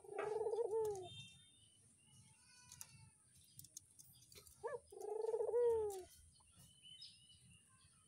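Barbary doves (burung puter) cooing twice. Each coo is a short rising note followed by a rolling call about a second long that bends down at its end. Faint chirps of small birds come in between.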